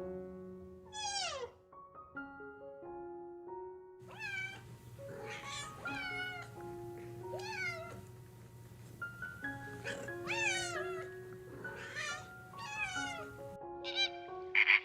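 A cat meowing again and again, its calls falling in pitch, over soft background music.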